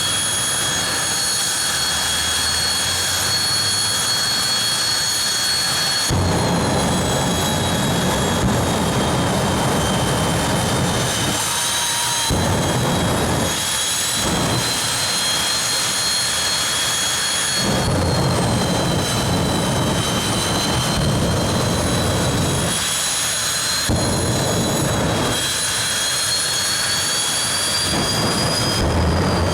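Supercharged nitromethane drag racing engines running loud, with a steady high whine. Louder, rougher spells of running start and stop abruptly several times.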